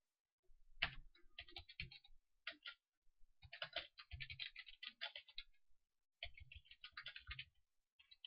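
Faint computer keyboard typing in quick runs of keystrokes, with a short pause a little past the middle.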